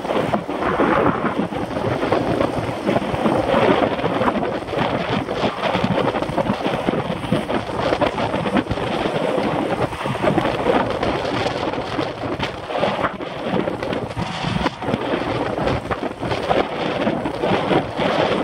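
Wind buffeting the microphone of a bike-mounted camera on a road bike moving at about 29 mph: loud, steady rushing noise that swells and dips in gusts.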